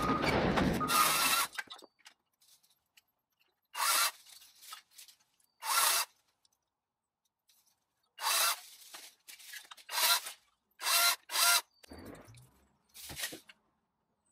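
A power tool cutting back a hedge, run continuously at first until it stops about a second and a half in, then triggered in about eight short bursts of under half a second each.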